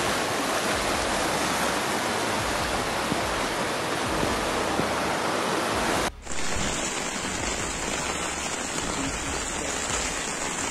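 Steady rushing noise of floodwater and rain. It cuts out for a moment about six seconds in, then carries on a little quieter.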